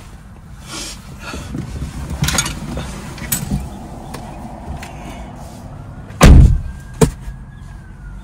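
Rustling and shuffling as someone climbs out of a car seat, then a car door slams shut with a heavy thud about six seconds in, followed by a lighter knock.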